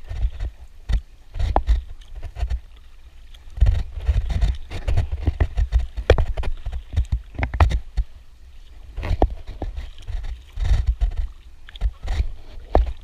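Kayak paddle strokes splashing in choppy water beside an Itiwit inflatable kayak, with irregular sharp slaps and knocks over a recurring low rumble.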